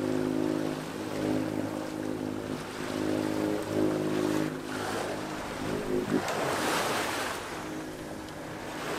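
Sailboat's inboard engine running steadily under way, with water rushing past the hull in a swell. About five to seven seconds in, a louder wash of water rises and briefly covers the engine.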